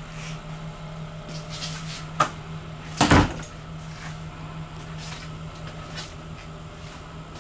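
A sharp click about two seconds in, then a louder knock a second later: a cupboard or interior door being handled. A steady low hum runs underneath.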